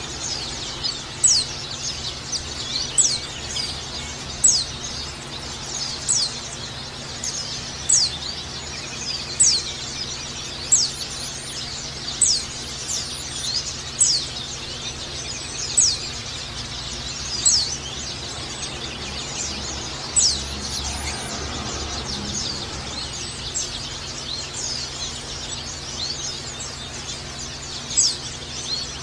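White-eye (pleci) calling: sharp, high downward-sliding chirps about every second and a half over a continuous high twittering. The loud chirps thin out past the middle and return near the end. A faint steady low hum lies underneath.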